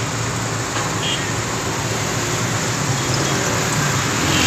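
Steady roar of road traffic, an even wash of noise with no single vehicle standing out.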